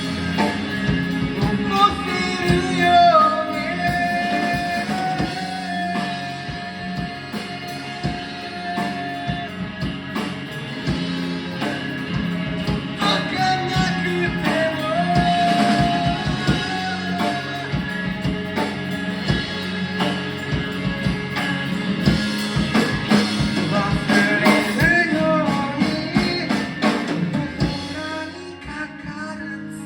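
A rock song with a singer, sung over guitar and drums, the voice holding long notes.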